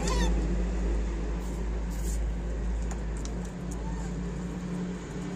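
Steady low mechanical hum with a few held tones, like a nearby engine or machine running, and a short high squeak right at the start.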